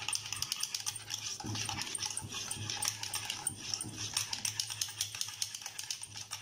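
Metal wire whisk beating wet cake batter in a ceramic bowl: a fast, continuous run of light clinks and scrapes of the wires against the bowl.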